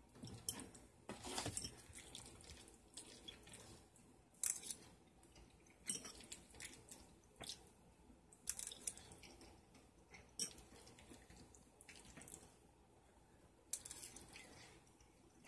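Someone eating macaroni and cheese quickly: a fork clicking and scraping against the bowl, with wet chewing and mouth sounds. It is quiet, with a short sharp click every second or two.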